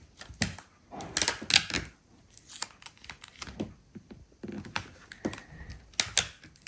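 Paper craft pages being handled and pressed down onto a table: an irregular run of light taps, clicks and paper rustles.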